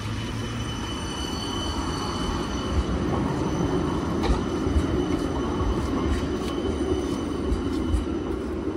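Transtech Artic low-floor tram rolling slowly past at close range: a steady low rumble of wheels on rails with a faint high whine. A few light knocks come in the second half.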